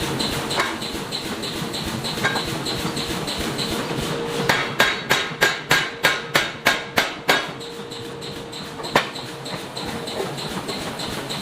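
Hammer blows on iron being forged: a few single strikes, then a quick even run of about a dozen strikes at about four a second, then another single strike. A steady hum runs underneath.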